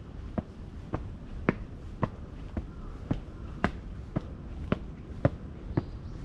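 Footsteps on stone, first climbing stone steps and then walking on stone paving: crisp, evenly paced steps at about two a second.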